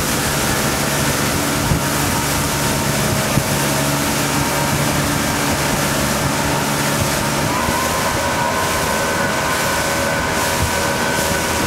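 Tow boat's engine running steadily at towing speed, with water rushing past the hull and wind buffeting the microphone; the engine note shifts slightly upward about two-thirds of the way through.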